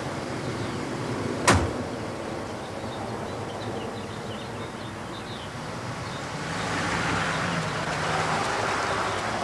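A car door is slammed shut once, sharply, about a second and a half in. About five seconds later the car's engine comes in and runs with a low steady hum.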